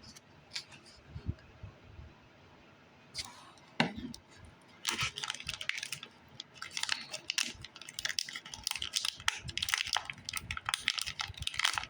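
Crackle foam slime and its plastic packaging being opened and handled: a single knock just before four seconds, then dense, rapid crackling and clicking from about five seconds in.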